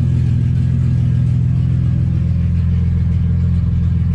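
Ford AU Falcon's engine idling steadily, running on a newly fitted Walbro 255 in-tank fuel pump.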